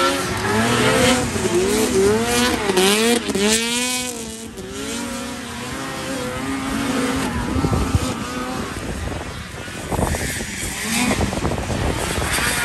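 Vintage two-stroke racing snowmobile engines revving, their pitch swinging rapidly up and down as the throttle opens and closes. Through the second half the engine tone becomes rougher and less clear, with a couple of sharp knocks about ten seconds in.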